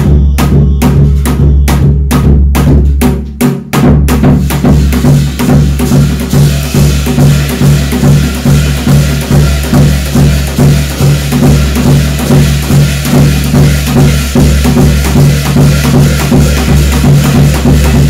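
Percussion music for a Korean shamanic gut ritual: drums struck in a fast, steady rhythm over a sustained low ringing. About four seconds in, the playing grows denser and brighter.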